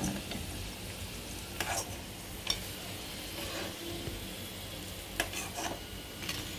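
Cornflake-coated soya chaap pieces sizzling steadily in hot oil on a low-to-medium flame, with a few light knocks of a utensil against the pan as the fried pieces are lifted out.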